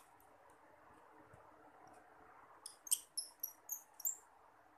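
A quick run of about six high-pitched chirps, a bit under three seconds in, over a steady low hiss. A few faint ticks come earlier.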